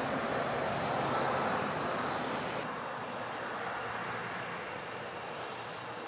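Steady rushing noise of distant motor vehicles. It swells a little about a second in, then its hiss thins out about halfway through.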